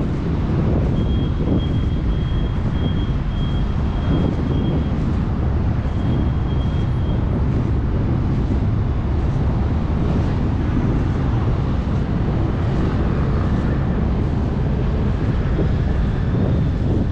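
Steady low rumble of wind buffeting the microphone, with a faint, thin high-pitched tone in the first several seconds.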